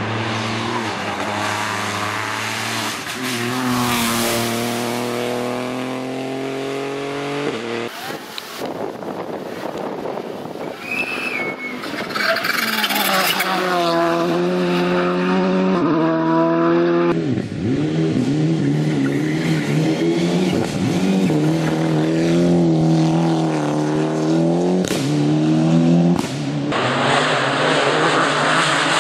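Several rally cars driven hard through corners, one of them a Volkswagen Polo GTI R5: engines revving up and dropping back over and over through gear changes and braking, with tyre noise on the tarmac.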